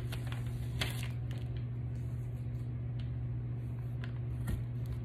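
Painter's tape being peeled off a painted metal piece by hand: soft rustling with a few small crackles as it lifts, over a steady low hum.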